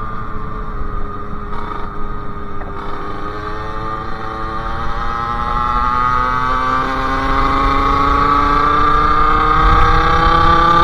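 Sherco SM-R 50's 50cc two-stroke engine with a KRM exhaust, riding: its pitch sags slightly at first, then climbs steadily from about three seconds in as the bike accelerates, growing louder.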